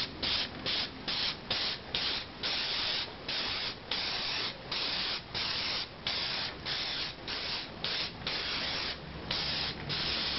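Gravity-fed airbrush at 30 psi spraying glaze onto bisque ware: a hiss of air and glaze switched on and off in short bursts, about two a second, with brief gaps between. Spraying in light passes, not held on, so the watery glaze builds up without running.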